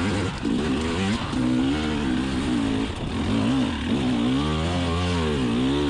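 2020 KTM 300 XC TPI's single-cylinder two-stroke engine running hard under load on a steep climb, its revs rising and falling again and again as the throttle and clutch are worked for traction.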